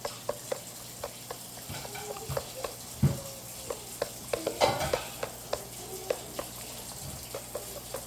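Homemade slime of glue and activator being stirred in a basin: irregular sticky clicks and squelches, with louder knocks about three and five seconds in.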